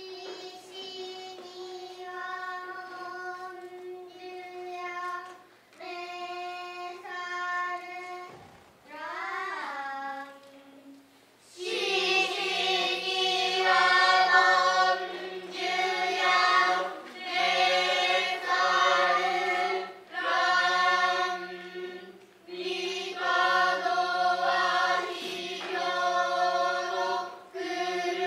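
Children chanting Noh utai in unison: drawn-out, held notes in phrases with short breath breaks, one wavering, gliding phrase, then a fuller, louder chorus from about twelve seconds in. This is the ji-utai chorus chanting for a shimai dance.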